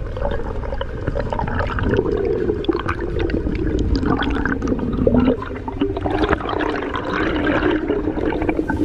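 Underwater sound picked up through a camera housing as a diver swims up toward the surface: a steady rush and gurgle of water with many small crackling clicks.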